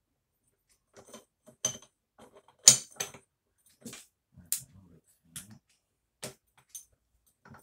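Metal clutch parts of a Derbi GPR Euro 3 engine clinking against each other as plates are fitted one by one into the clutch basket. About nine sharp clicks, the loudest near the middle.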